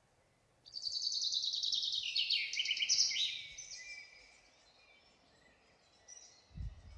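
A small songbird singing a fast trill of rapid repeated notes that steps down in pitch, lasting about three seconds, followed by fainter chirps. A short low thump comes near the end.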